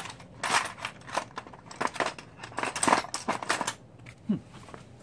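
Metal sockets and hand tools clinking and rattling in a tool tray as a hand rummages through them for a socket extension, in irregular bursts of clicks that die down about four seconds in.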